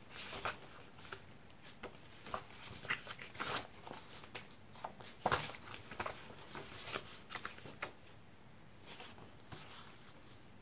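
Sheets of printed collage paper rustling, sliding and tapping as they are leafed through and laid down on the desk. A run of short rustles that thins out near the end.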